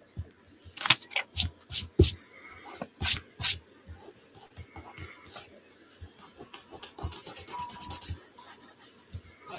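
Hands handling paper and rubbing it against a tabletop: several sharp crinkles and taps in the first few seconds, then lighter scratching and ticks. A short faint beep comes near the end.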